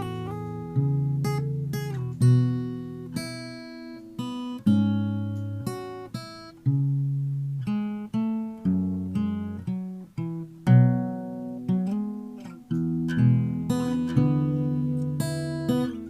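Background music: acoustic guitar played in plucked and strummed notes that ring and fade one after another.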